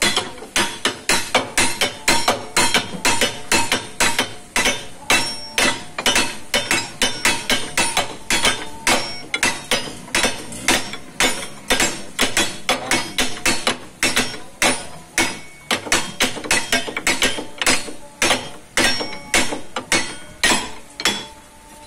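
Repeated hammer blows on steel at the rotor shaft of a sand-grinding hammer mill, with a steel rod held against the shaft hub as a drift to free it for a blade change. The blows are rapid and even, about three a second, each one a sharp metallic clang with a short ring.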